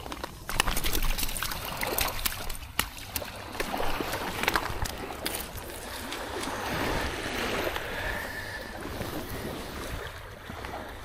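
Surf washing on the shore with wind, broken by many scattered sharp clicks and knocks.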